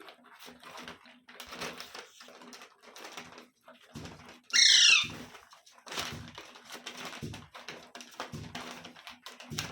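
A pet parrot gives one loud, harsh screech lasting about half a second, about four and a half seconds in, with its pitch sweeping downward. Around it are many small clicks and rustles.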